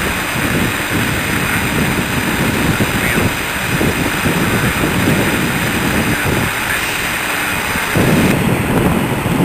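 Wind buffeting the microphone: a steady loud rumble that surges in gusts, strongest about eight seconds in.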